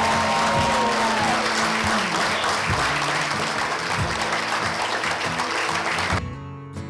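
Audience applauding over soft background music. The applause cuts off suddenly near the end, leaving the music alone.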